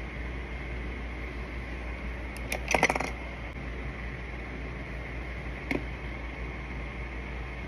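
A quick clatter of small clicks about two and a half seconds in and one more click near six seconds, as small makeup items are handled, over a steady background hum and hiss.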